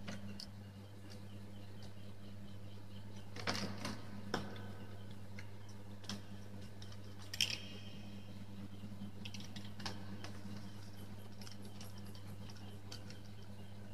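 A few scattered sharp clicks and small handling knocks of a plastic wall power socket being handled and its terminal screws driven with a screwdriver, over a steady low hum.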